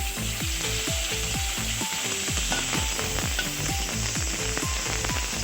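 Onion sizzling as it fries in hot oil, a steady hiss. Background music with a fast, steady beat plays along with it.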